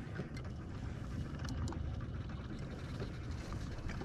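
Steady low rumble of wind and water around an open fishing boat on the lake, with a few faint light ticks and clicks.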